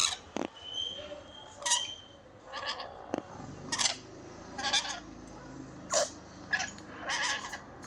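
Lovebirds calling in a string of short, shrill chirps and squawks, about one a second.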